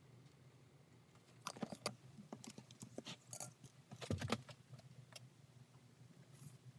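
Small clicks, taps and scrapes of leather pieces and a hand tool being handled on a plastic cutting board. They start about a second and a half in, and the loudest knock comes about four seconds in, over a faint low hum.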